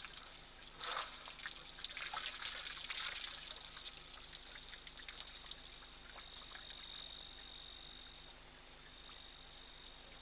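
Wet, irregular lapping and smacking from a lion's mouth close to the microphone, densest in the first few seconds and thinning out after about six. A steady high-pitched insect call runs underneath.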